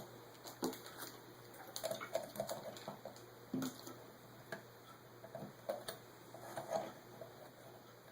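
Light, irregular clicks and taps of needle-nose pliers and small metal parts on a Holley carburetor as a C-clip is worked off.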